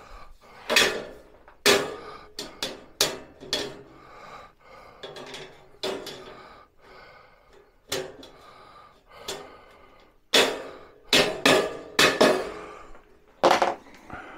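Steel boltless shelving being assembled: a string of irregular sharp metallic knocks and clanks as parts are knocked into the slotted uprights, the loudest coming in a cluster about ten to twelve seconds in.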